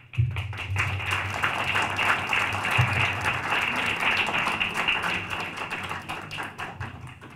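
Audience applauding: many people clapping, starting abruptly and dying away near the end.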